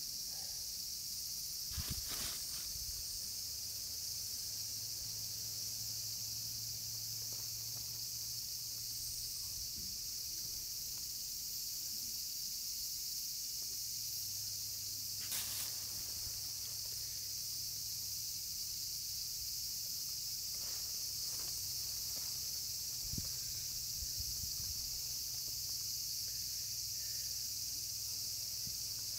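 Steady high-pitched insect chorus, with a faint low hum underneath. A few short soft knocks come through, about two seconds in and again about fifteen seconds in.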